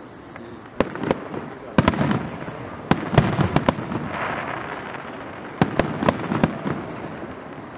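Aerial fireworks shells bursting overhead: about a dozen sharp bangs in irregular clusters of two or three, with a pause of a second or two about halfway through.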